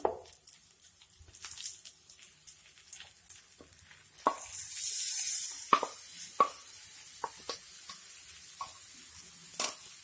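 Mashed roasted brinjal and chopped spring onion greens tipped into hot oil tempering in a nonstick kadai, sizzling, with a wooden spatula knocking and scraping against the pan. A burst of loud sizzling about halfway through settles into a steady lower sizzle.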